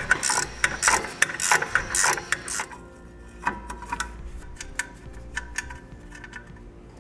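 Ratcheting wrench clicking as it backs off the nuts that hold a trailer's electric drum-brake assembly to the axle. Quick runs of clicks for the first few seconds, then slower, scattered clicks.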